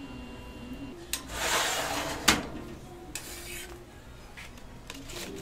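Metal tray of a drawer-style flatbread oven sliding out on its runners with a scrape, stopping with a sharp metal clank about two seconds in. Shorter scrapes and taps follow as the crisp guokui flatbread is lifted off the tray with tongs.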